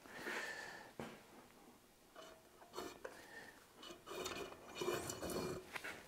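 Faint rubbing and scraping as a thin insulated wire is drawn through a homemade wire stripper, a utility-knife blade slitting the plastic insulation against an aluminum angle guide, with a few light clicks.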